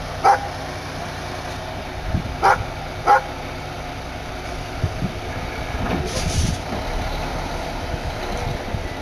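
Triaxle dump truck's diesel engine running steadily, with a short hiss of air about six seconds in. A dog barks three times in the first few seconds.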